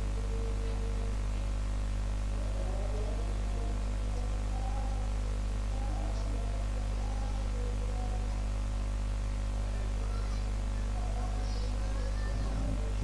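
Steady electrical mains hum with a light hiss, running unchanged throughout; faint wavering background sounds come and go beneath it.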